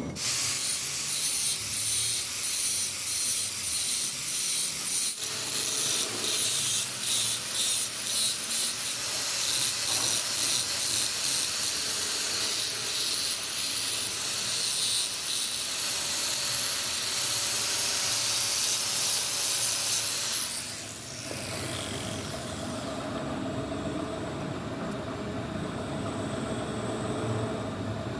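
Steel being ground on a power grinder to shape a lathe cutting tool: a harsh, high hiss that pulses in short strokes about twice a second for the first several seconds, then runs steadily. About three-quarters of the way through, the hiss falls away and leaves a steady motor hum.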